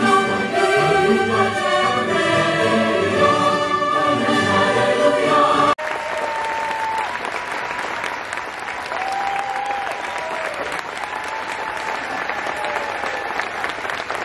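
A large choir with orchestra sings a sustained choral passage that breaks off abruptly about six seconds in. It is followed by the audience applauding steadily.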